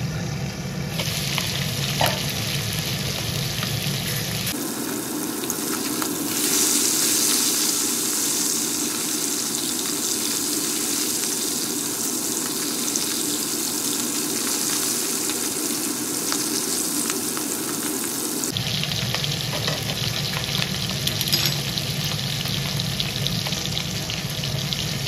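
Small whole fish frying in hot oil in an aluminium kadhai: a steady sizzle with crackling spatters. The tone of the sizzle shifts abruptly a few seconds in and again about two-thirds of the way through.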